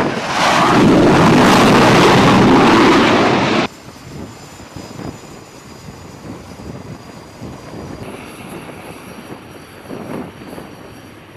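T-45 Goshawk jet trainer's turbofan engine, loud as the jet comes in to land on the carrier deck, cutting off suddenly after about three and a half seconds. Then much quieter engine noise, with a faint high steady whine joining about eight seconds in.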